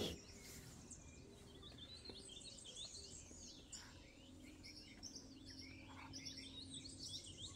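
Faint birdsong over near silence: many small birds twittering with short, high chirps throughout.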